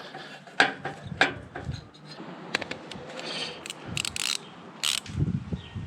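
Ratchet wrench clicking in short, irregular strokes on a motorcycle's exhaust flange nuts, with scattered sharp clicks and knocks of metal on metal.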